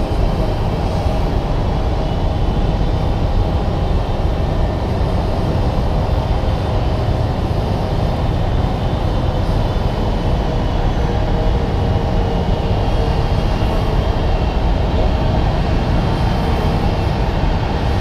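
Honeybees buzzing around a swarm box, over a loud, steady low rumble of aircraft engines across the airfield.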